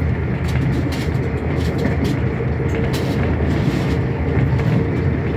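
Passenger train running at speed, heard from inside the carriage: a steady low rumble of wheels on rail with a constant hum and scattered light high ticks.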